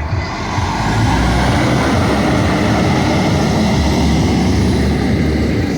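Heavy truck engine running loudly close by: a steady low rumble under a rushing noise.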